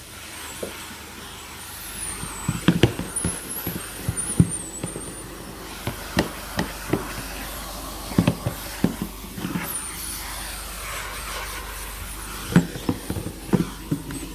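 Plastic car door card being handled and wiped down with a wet cloth: irregular clusters of knocks and taps, with faint high squeaks.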